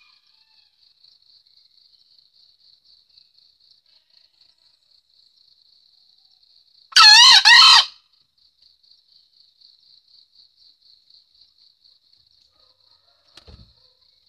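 Male green junglefowl (Gallus varius) giving one short two-part crow halfway through, over a faint, steady pulsing chirp of insects.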